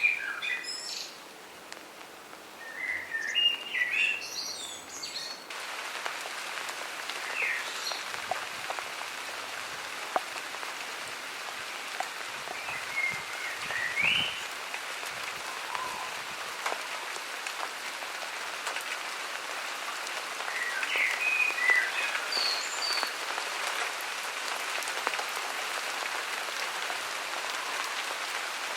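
Garden birds singing short chirping phrases, then about five seconds in a steady hiss of rain begins suddenly. Birds still chirp now and then through the rain.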